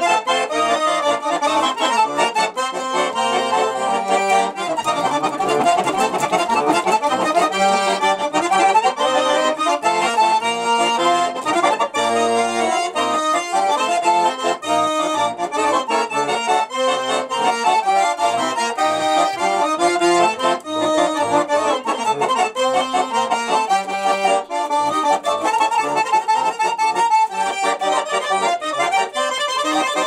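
A garmon, the Russian button accordion, played solo: a continuous melody over chords, with no singing.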